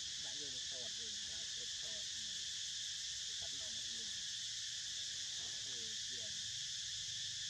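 Steady, high-pitched insect chorus droning without a break, with faint voices talking underneath.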